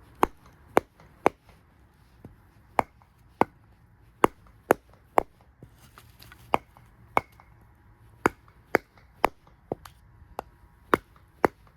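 Handmade 1095 high-carbon steel bushcraft knife chopping into a log: about seventeen sharp strikes, mostly half a second apart in short runs with brief pauses between.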